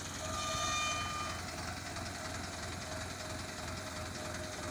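A mobile crane's engine runs steadily while it holds a suspended bundle of ductile iron pipes. A steady high whine sits over it, loud for about the first second and then fainter.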